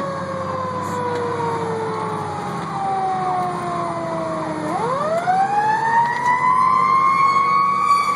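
Fire engine's siren, heard from inside the cab on an emergency response, over the truck's engine drone. The siren's pitch slides slowly down for about four and a half seconds, then winds quickly back up and holds high.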